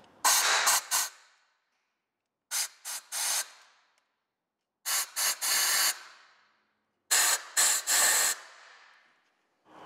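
Four groups of short hissing spray blasts, each group made of two to four quick bursts, about every two and a half seconds.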